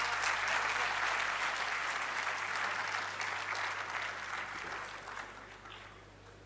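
Audience applauding, the clapping steady at first and then dying away over the last two seconds or so.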